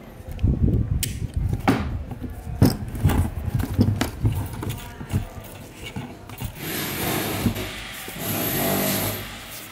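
Irregular knocks and clatter of pliers and a bare fan motor being handled on a wooden workbench. In the second half come two longer rips of electrical tape being pulled off the roll.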